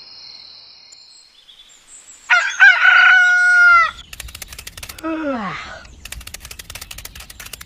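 A rooster crowing once, lasting over a second and dropping off at the end, then a short falling tone about five seconds in.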